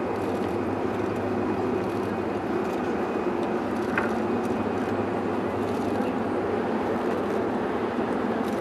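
Steady engine drone with no change in pitch, and a brief high chirp about four seconds in.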